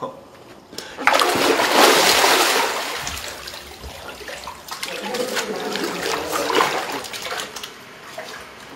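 Water splashing in a bathtub: a big splash about a second in that dies away over a couple of seconds, followed by smaller splashes and sloshing.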